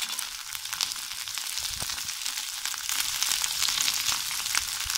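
Chopped onion, capsicum and carrot sizzling in hot oil in a kadai, stirred with a metal slotted spoon that clicks against the pan. The sizzle grows louder a little past the middle.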